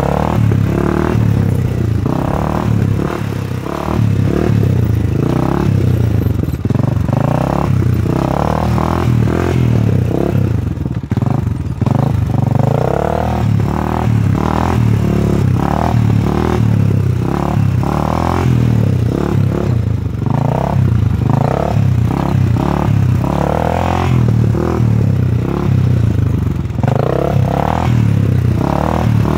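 Honda TRX400EX quad's single-cylinder four-stroke engine running under throttle, revving up and easing off again and again.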